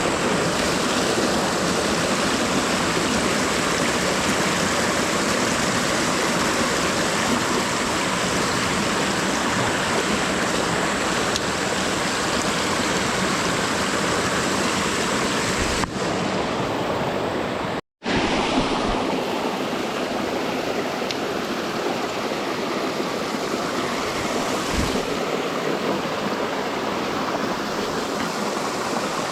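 Steady rushing water of a creek tumbling over small waterfalls and cascades, loud and close. It cuts out for a split second about two-thirds of the way through.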